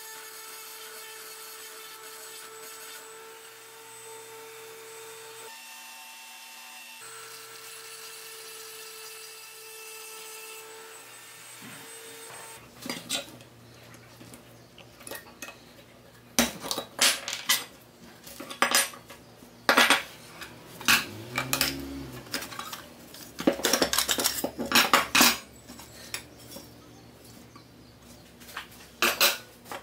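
A Dremel rotary tool runs with a steady whine as it grinds at the sheet-steel toy part, its tone shifting briefly about six seconds in. It then stops, and irregular metal scraping and sharp clinks follow as the pressed-steel pieces are pried apart with a small hand tool and handled on the bench.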